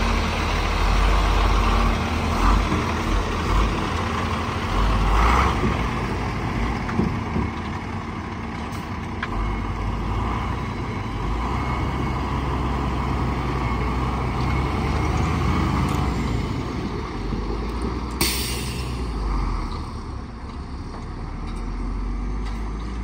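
International 4200 bucket truck's diesel engine running as the truck drives across the lot, with the engine note shifting several times. A brief hiss comes about eighteen seconds in, and the sound eases slightly near the end as the truck moves away.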